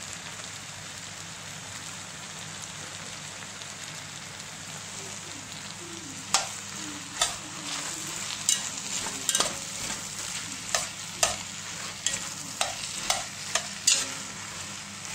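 Chicken, mushrooms, peppers and spring onions sizzling in an enamelled cast-iron casserole, a steady frying hiss. From about six seconds in, a metal slotted spoon stirring them clinks against the pot about a dozen times.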